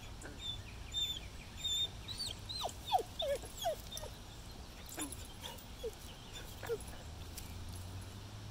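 A dog whining and whimpering: a string of short high-pitched whines, then a few quick falling cries.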